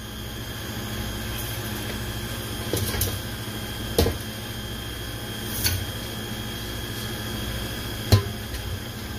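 A steady machine hum with a faint high whine, broken by a few short clicks or clinks, the sharpest near the end.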